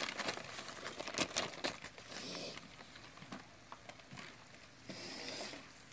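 Newspaper crinkling and rustling as a hand handles it in a plastic tub of live mealworms. There are a few sharp crinkles in the first two seconds, then fainter rustling.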